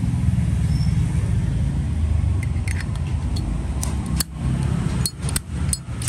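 A steady low rumble of road traffic, and from about halfway through a string of sharp metallic clicks and clinks from Zippo lighters being handled.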